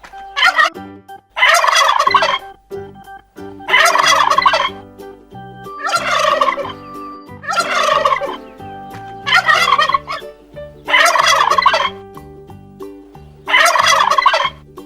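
Domestic turkey gobbling: a series of about eight loud gobbles, one every one and a half to two seconds, over a soft keyboard tune.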